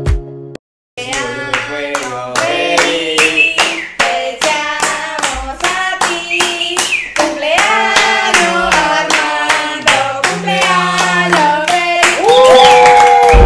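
A song with a sung voice over a steady beat of handclaps. It starts after a brief silent break about a second in and ends on a long held note.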